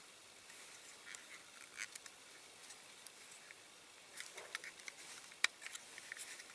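Faint, scattered light clicks and taps of small diecast and plastic model parts being handled on a workbench, with one sharper click about five and a half seconds in.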